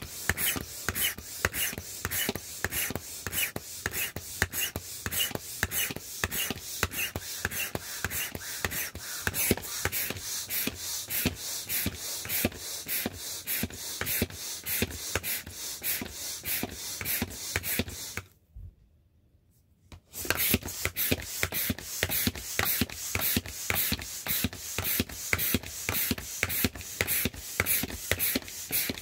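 Vinyl inflatable rooster pool toy being pumped up with a manual air pump: a steady rhythm of short puffs of air, about two to three strokes a second. The pumping stops for about two seconds roughly two-thirds of the way through, then picks up again at the same pace.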